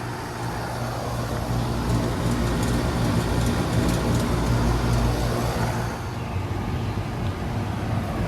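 Outdoor central air-conditioner condenser running: a steady low compressor hum under the even rush of its fan.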